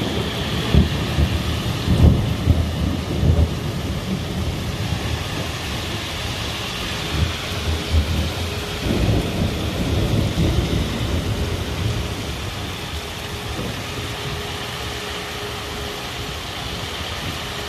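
Heavy rain pouring steadily in a thunderstorm, with thunder rumbling, loudest in the first few seconds and again around eight to eleven seconds in. A faint steady tone comes in a few seconds in and holds, with one short break.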